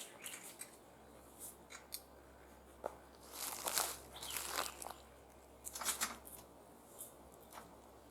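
Pliers gripping and turning a bolt on a metal ladder tree stand: scattered sharp metal clicks, with three short scraping, rasping bursts about halfway through.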